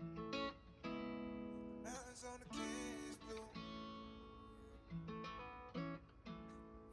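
Background music: an acoustic guitar strumming chords, the intro of a song.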